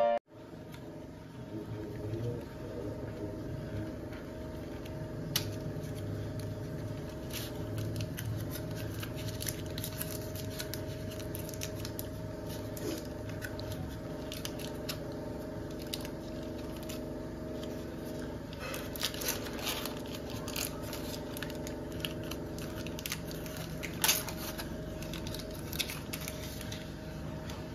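An Amul butter carton being opened by hand: cardboard and paper wrapper tearing and crinkling in scattered clicks, with one louder snap near the end, over a steady low background hum.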